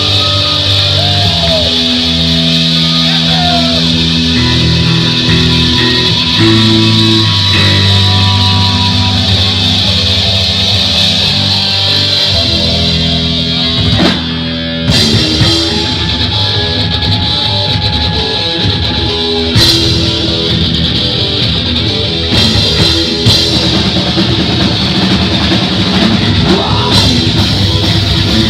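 Heavy metal band playing live: electric guitar riffing over bass guitar and drum kit, with a brief break about halfway through before the band comes back in.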